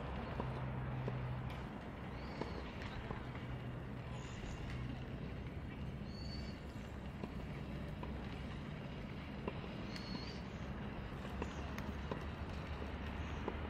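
Fire burning in a large CAGEDBIRD wood stove: a steady low rush of flame with scattered crackles and pops throughout.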